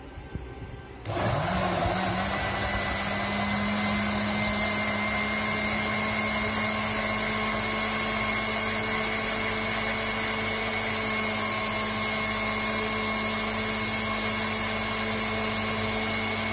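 Electric countertop blender switched on about a second in, its motor spinning up quickly, then running steadily with a high whine while it blends mango pieces, yogurt and cold water into lassi.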